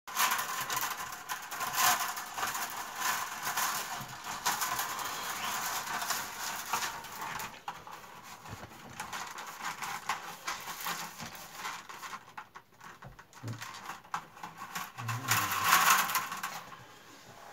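Dry rustling and light clicking of willow rods rubbing against each other as the upright stakes of a woven basket are gathered and handled by hand. It comes unevenly, loudest about two seconds in and again near the end.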